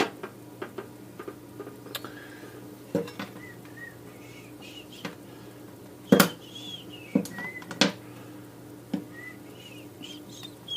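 Small metal tools clinking and tapping on a workbench during soldering work: scattered sharp clicks, with a louder pair of clacks about six seconds in, over a steady low hum.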